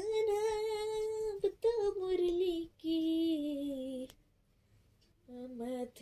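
A young female voice singing a few long, held notes of a song with a slight vibrato, in three phrases; it breaks off about four seconds in and starts again near the end.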